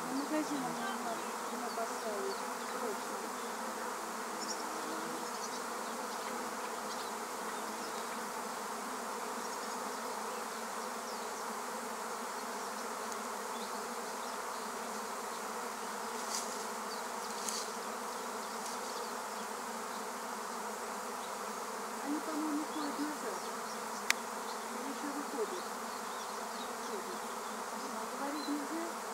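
A honeybee swarm issuing from its hive: the steady hum of a mass of bees in flight, with single bees buzzing close past now and then. One sharp click late on.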